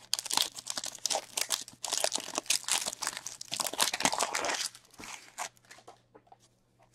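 Foil hockey card pack wrapper being torn open and crumpled by hand, a dense crinkling for about the first four and a half seconds. After that only a few light clicks as the cards are handled.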